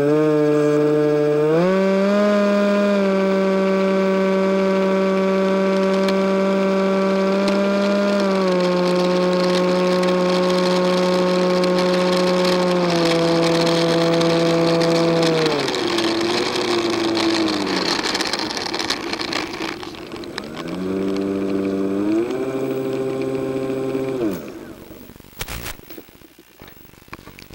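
Electric motor and propeller of a Nitroplanes Easy Hawk RC plane whining as it taxis on the runway, its pitch stepping up and down with the throttle. It drops away, comes back once more, and cuts off near the end, followed by a few knocks as the plane is handled.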